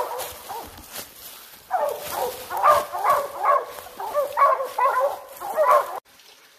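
Hunting hounds barking and baying at a bear treed above them, several calls overlapping. After a short lull the barking picks up again and then cuts off suddenly about six seconds in.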